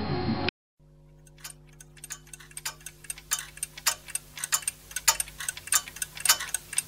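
Clock-ticking sound effect over a faint steady hum. The ticks start sparse about a second in and then come faster and closer together, marking time passing.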